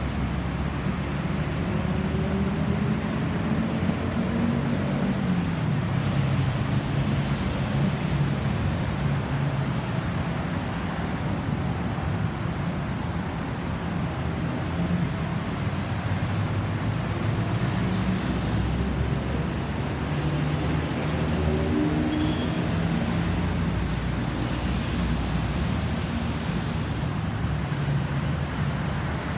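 Road traffic: vehicle engines and tyre noise running steadily, with one engine's pitch falling a few seconds in as it slows. No siren is heard.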